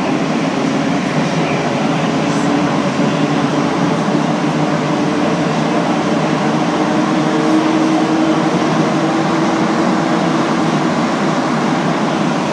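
Montreal Metro Azur rubber-tyred train running through a tunnel, heard from inside the car: a loud, steady rolling noise with a steady low tone running under it.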